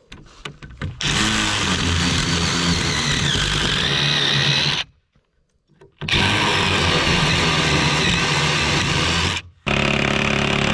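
Cordless DeWalt 20V drill driving a 1-inch spade bit into a wooden door board to bore counterbores about half an inch deep: two long runs of several seconds each, then a short third run near the end.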